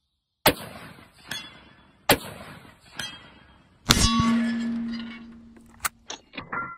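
A .303 Pattern 1914 bolt-action rifle fires two shots, each followed just under a second later by the clang of the bullet striking a hanging steel target. Then a louder hit sets the steel plate ringing for about two seconds. Near the end come several quick metallic clicks as the rifle's bolt is worked.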